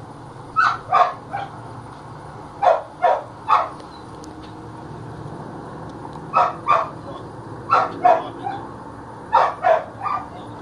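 Dog barking in quick bursts of two or three, five times over, with pauses of about a second or two between bursts.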